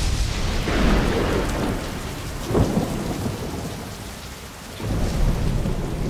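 Heavy rain pouring down with rolling thunder: deep rumbles swell and fade, with a sharp thunderclap about two and a half seconds in and another low rumble near the end.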